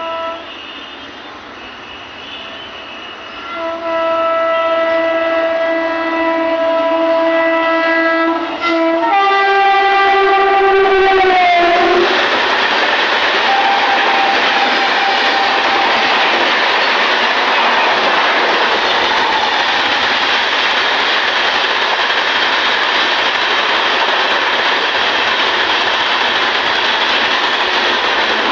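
Train horn honking in several blasts, including one long blast of about five seconds, with the last blast sliding down in pitch. From about twelve seconds in, the passing train takes over as a loud, steady rush of wheels and cars on the track.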